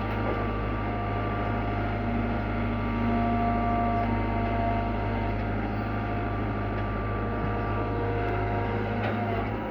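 Kobelco Yutani SK120 excavator's diesel engine running steadily, with a hydraulic whine that rises and fades as the machine works.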